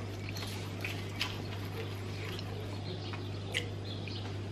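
Knife and fork carving a smoked whole chicken in a metal roasting tray: a few faint clicks and scrapes, the clearest about a second in and again past three seconds, over a steady low hum.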